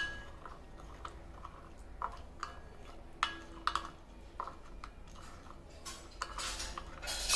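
Metal spoon stirring oil and whole spices in a glass bowl, with scattered light clinks of the spoon against the glass. A louder rushing noise builds near the end.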